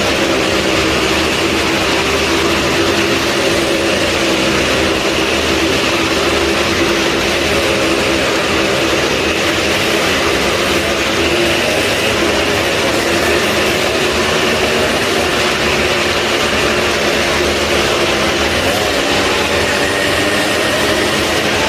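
Motorcycle engines running loud and steady at high revs, the bikes circling inside a globe-of-death (maut ka gola) show.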